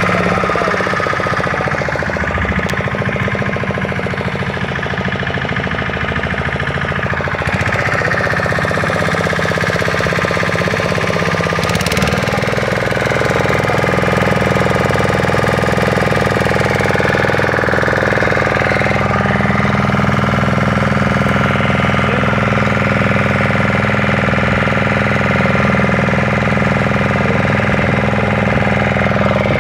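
Engine of a wooden fishing boat running steadily under way, a loud, even drone with a few slight shifts in pitch.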